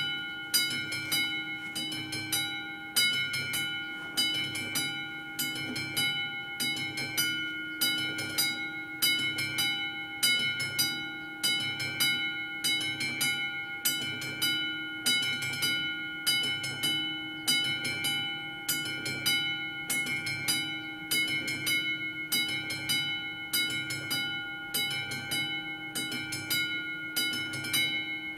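Classic electric striking bell of an AŽD 71 level-crossing warning signal ringing continuously in rapid strokes, its ring swelling and fading about once a second. It sounds while the crossing is activated to warn of an approaching train.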